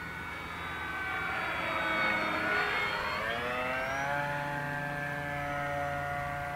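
Durafly Tundra RC model plane's electric motor and propeller whining in flight, louder about two seconds in; the pitch dips about two to three seconds in, then rises and holds steady.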